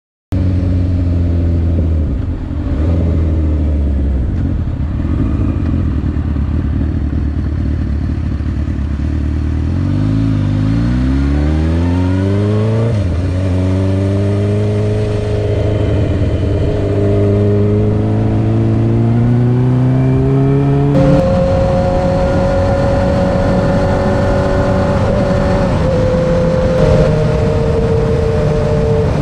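Suzuki GSX-R sport motorcycle engine running under way. About ten seconds in, its pitch rises in two quick sweeps with a drop between them as it accelerates through a gear change, then climbs slowly. About 21 seconds in it jumps suddenly to a higher steady note.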